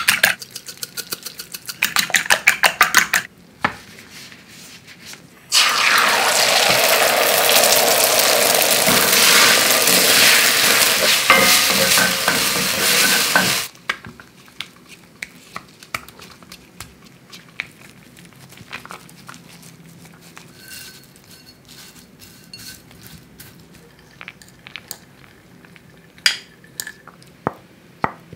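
A fork whisks eggs in a ceramic bowl with rapid clicking for about three seconds. A couple of seconds later comes a loud, steady sizzle of eggs frying in a hot pan, lasting about eight seconds and cutting off suddenly. After that there are soft scattered taps and rustles as grated cheese and fried mushrooms are spread onto a tortilla.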